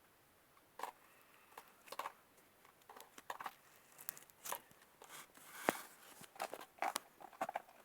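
Faint, scattered soft clicks and squelches of homemade slime, school glue mixed with soap, being stirred in a small jar, coming more often after a few seconds.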